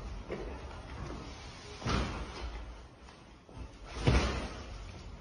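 Two dull thumps about two seconds apart, over a low background hum.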